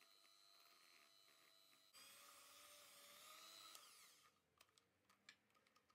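Electric hand mixer's motor whining faintly as its beaters whip a thick coconut and whipped-cream mixture. About two seconds in the whine gets louder, then near four seconds it winds down with a falling pitch, and a few light clicks follow.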